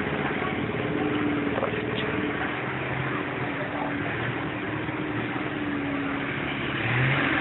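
A motor engine running steadily amid outdoor market noise, getting a little louder near the end.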